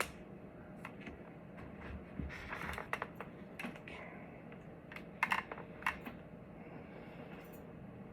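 Scattered small clicks and taps of plastic parts and cable connectors being handled while fitting a helmet intercom, with a few quick clusters of clicks about two and a half and five seconds in.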